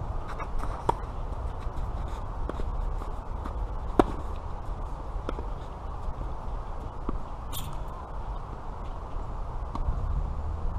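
Tennis ball struck back and forth by rackets in a rally, sharp pocks a few seconds apart, loudest about four seconds in. Under them runs a steady low rumble of wind on the microphone, and a short scraping hiss comes about two-thirds of the way through.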